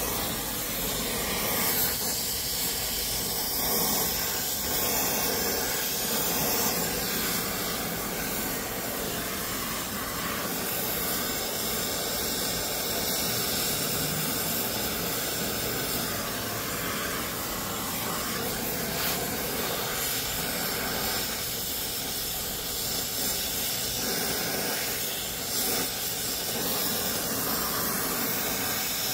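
Brazing torch flame burning with a steady hiss while it heats a copper pipe joint.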